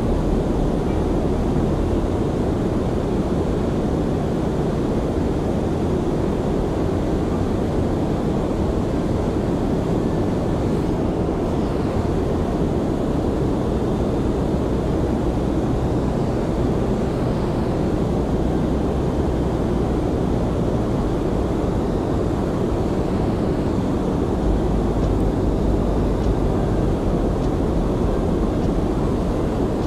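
Steady low rumble of wind and moving water around a small fishing boat on a river, with the deepest part of the rumble growing stronger near the end.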